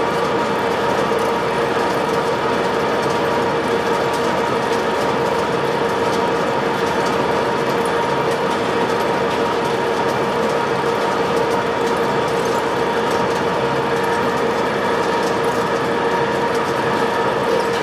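WMW Magdeburg DP3 facing lathe running steadily, a constant mechanical noise with a steady whine.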